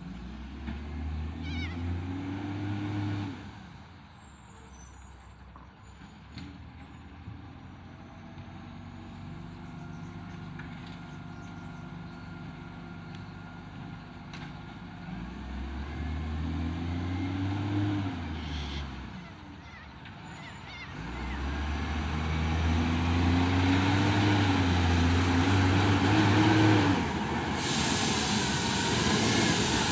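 Acco garbage truck's diesel engine, which has an exhaust leak, revving up three times and dropping back to idle between the rises. Near the end comes a loud hiss of air.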